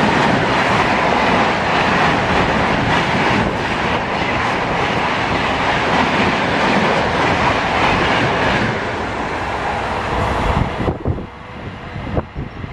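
Fast train running past at speed, a loud, steady rush of wheels on the rails. It cuts off suddenly about eleven seconds in as the end of the train goes by, leaving quieter wind noise and a few knocks.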